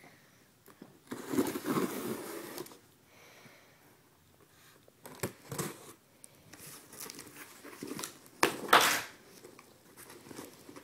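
A cardboard shipping box being opened by hand: flaps pulled and worked apart with crinkling, scraping and tearing noises in several separate bursts, the loudest and sharpest near the end.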